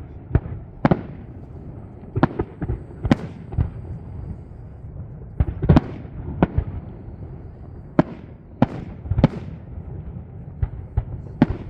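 Fireworks display: aerial shells bursting in sharp bangs at irregular intervals, several in quick succession, over a steady low rumble.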